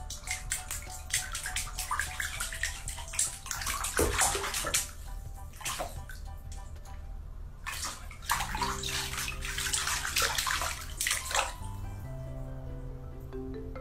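Bathwater splashing and sloshing in short bursts as a cat paws at the water in a filled bathtub, over background music whose held notes come forward in the second half.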